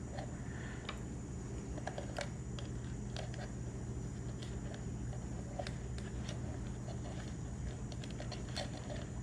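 Light, scattered clicks and taps of hands handling wiring and a plastic light-bar housing, over a steady low hum.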